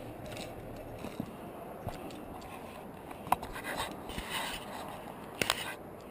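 Handling noise from a climber's via ferrata gear: a few sharp clicks, one about halfway through and two close together near the end, with scraping in between.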